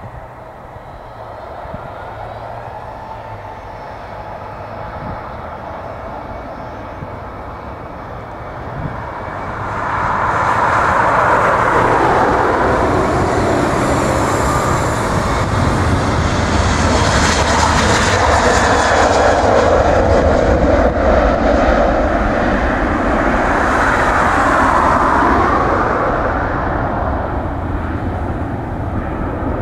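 Ryanair Boeing 737-800's twin turbofan engines at takeoff thrust. The jet noise builds over the first ten seconds, holds loud and steady as the plane rolls down the runway and lifts off, then slowly fades as it climbs away.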